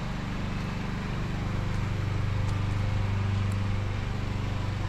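An engine running steadily at idle: a low, even drone that does not change.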